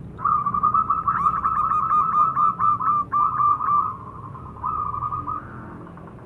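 Zebra dove (perkutut) cooing: a rapid run of short notes for about four seconds, then a shorter phrase a moment later.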